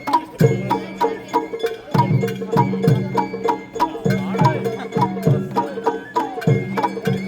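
Sawara bayashi festival float music: a bamboo flute playing sliding melodic notes over a steady rhythm of taiko drums and a small hand gong.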